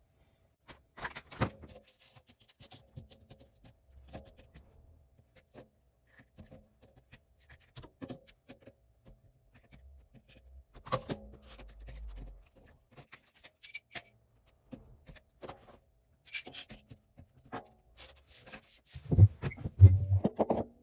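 Scattered light clicks, taps and rustles of small plastic fidget toys being picked up and set down on a table, with a few louder thumps near the end.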